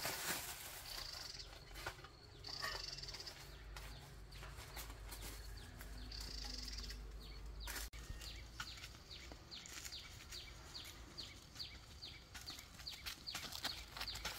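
Quiet rural outdoor ambience with a few short, high-pitched animal calls. In the second half there is a regular run of quick high ticks, about two to three a second.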